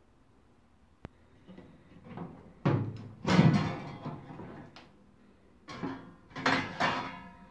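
Toaster oven's hinged glass door pulled open with a clatter a few seconds in, then the metal wire rack inside knocked and rattled by hand, a few sharp clanks with a brief metallic ring near the end.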